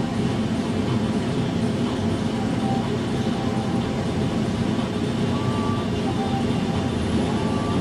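Steady low rumble and hum of a Dresden tram standing at a stop, heard from the driver's cab, while another tram just ahead pulls away along the track.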